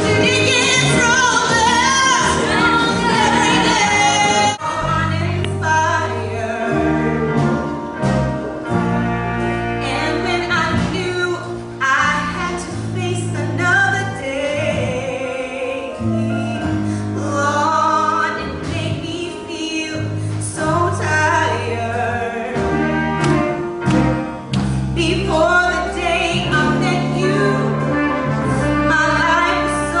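A woman singing lead into a microphone over a live band in a stage musical. The music breaks off abruptly about four and a half seconds in and jumps to a different song, with sustained bass notes under the voice.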